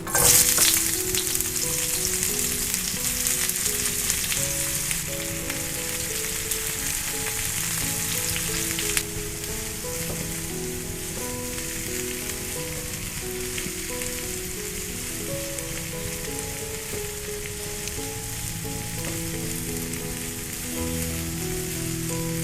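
Food frying in hot oil in a pan: a dense sizzle that starts suddenly, stays louder for the first nine seconds or so, then settles to a steadier, quieter sizzle. Soft background music plays underneath.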